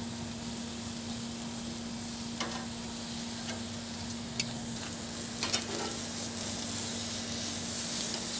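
Beef tri-tip sizzling as it sears on a smoking-hot gas grill side burner: a steady hiss with a few light clicks, over a low steady hum, growing a little louder near the end.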